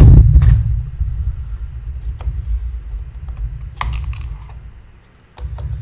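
Small clicks, taps and rattles of a nut driver and loose plastic and metal parts being worked on a Stihl MS250 chainsaw's air filter base, over a steady low hum that drops out briefly near the end.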